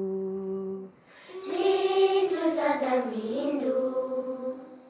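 A lone voice singing unaccompanied in a slow melody: a long held note breaks off about a second in, then a new phrase slides down in pitch and fades away near the end.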